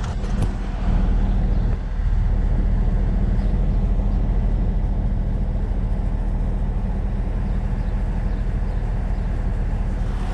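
A car engine idling with a steady low hum, under a broad rumble of noise that gets louder about a second in.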